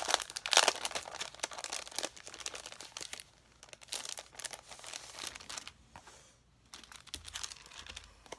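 Clear plastic packaging crinkling and paper pages rustling as a stack of planner inserts is handled. The crackle is busiest in the first two seconds, thins out after that, and pauses briefly a little after six seconds.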